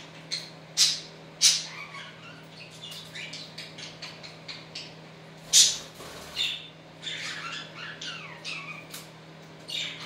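Budgerigars chirping and chattering, with several loud, sharp squawks, the loudest about halfway through.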